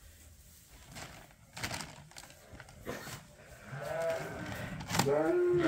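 Sheep bleating, two drawn-out calls in the second half, after a few faint knocks.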